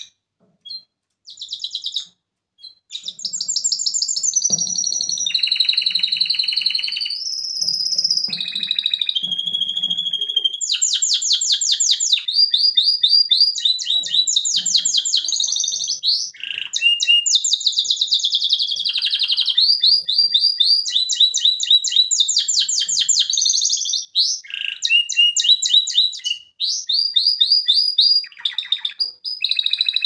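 Male canary singing a long, high-pitched song of rapid trills and rolling repeated notes, with a few short breaks in the first three seconds and then almost without pause.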